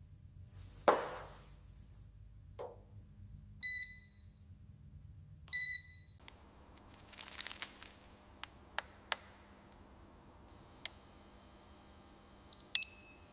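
Faint scattered clicks and taps, with two short beeps about two seconds apart near the middle.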